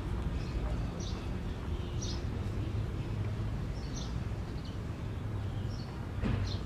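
Outdoor street ambience: a steady low rumble with faint, short bird chirps every second or so.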